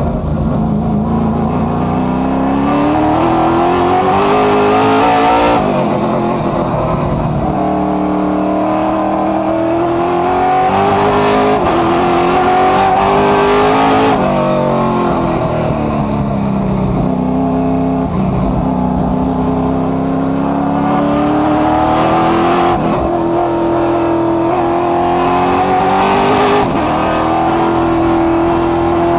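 Race car engine heard from inside the cockpit under hard acceleration: its pitch climbs steadily, cuts back sharply about four times, and sags for a few seconds in the middle before climbing again.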